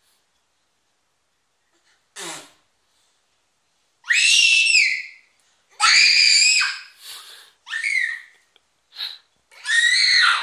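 Young children shrieking and squealing in play: a short cry about two seconds in, then a run of loud, high-pitched screams from about four seconds in, several dropping slightly in pitch at their ends.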